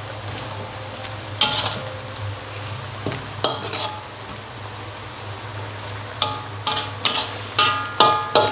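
Metal spatula scraping and clinking against a metal wok as a simmering taro stew is stirred. The strokes are scattered at first and come in a quick run of scrapes over the last couple of seconds, over a steady low hum.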